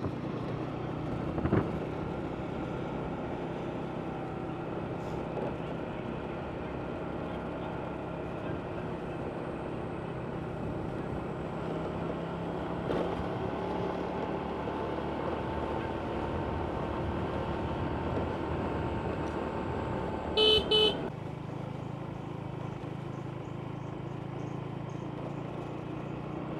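Steady road-traffic and vehicle engine noise, with a vehicle horn giving two short beeps about twenty seconds in.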